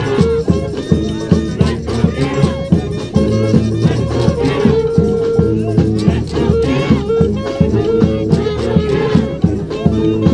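Street brass band playing a New Orleans-style brass band tune: held horn notes over a steady drum beat and shaken percussion.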